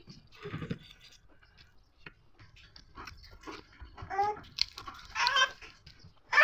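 Chewing and crunching of fried bird, scattered sharp crunches, then two short high-pitched whining cries in the second half.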